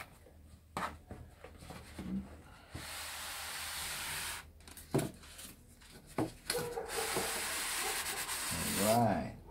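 White styrofoam packing case sliding out of its cardboard box: two long rubbing scrapes of foam against cardboard, with a few light knocks as the box is handled.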